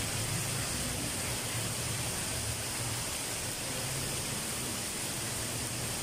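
Steady hiss of background noise, with a faint low hum that fades out in the first few seconds.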